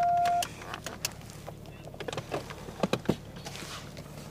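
Inside a stationary police car's cabin: a steady electronic beep cuts off about half a second in. It leaves a low steady hum from the idling car and a few scattered clicks and knocks.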